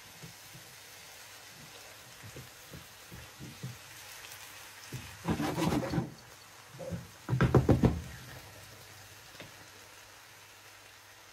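Spatula stirring and scraping chicken, mushrooms and raw rice in a frying pan: light knocks at first, then two louder bursts of scraping and clattering about five and seven seconds in.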